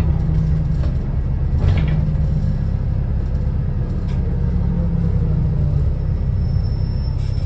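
Wrightbus New Routemaster series-hybrid bus running, heard from inside the cabin: a steady low rumble with a faint steady tone above it, and a couple of brief knocks or rattles about two and four seconds in.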